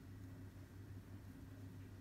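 Near silence: room tone with a steady low hum and faint hiss.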